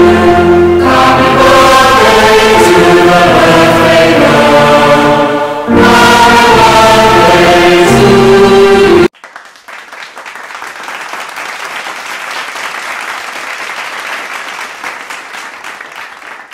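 Music with a choir singing, which cuts off suddenly about nine seconds in. A much quieter stretch of applause follows and fades near the end.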